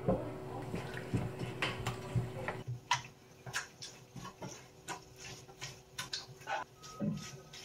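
Irregular wet clicks and squelches of kimchi chili paste being worked by hand into napa cabbage leaves, with a few knocks against the steel tray.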